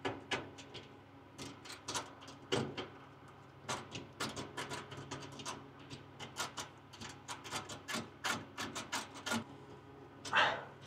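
Rapid, irregular small clicks of an electrical connector being screwed home by hand onto the bleed pressure regulating valve, its coupling ring clicking as it turns, over a faint steady low hum. A short louder rub near the end.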